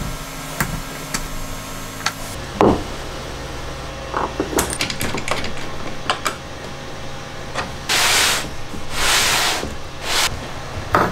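Workshop handling noises: scattered clicks and knocks, then three short hissing strokes about eight to ten seconds in.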